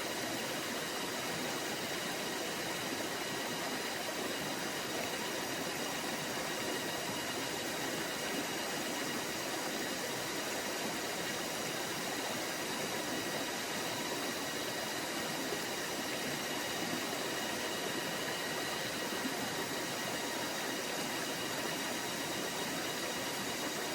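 Forest stream flowing: a steady, even rush of running water with no breaks or changes.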